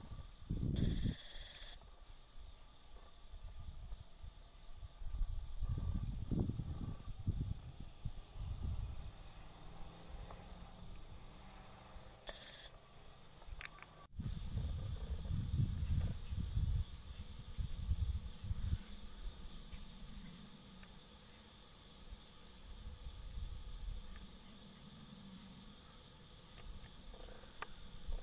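Insects calling steadily in a high, evenly pulsing chorus, with irregular low rumbles now and then.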